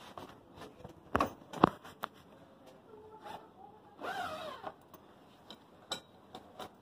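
Zipper of a fabric carry bag being pulled open along its length, in short rasping runs with small clicks. Two sharp knocks about a second in, the loudest sounds, come from the bag being handled and set down.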